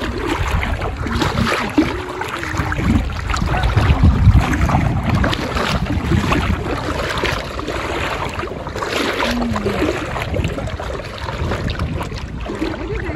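Wind rumbling on the microphone with water sloshing as someone wades through shallow sea water.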